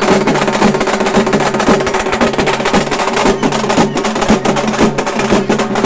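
Halgi frame drums played by a troupe, a fast, dense beat of stick strokes, with a held pitched note underneath.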